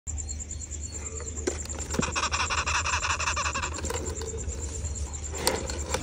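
Birds chirping in a rapid chatter of short repeated notes for a couple of seconds, over a steady low hum.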